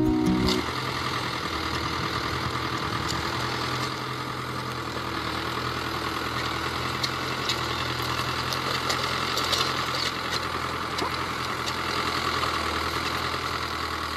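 Farm tractor engine running steadily while the tractor pulls a plough through a field.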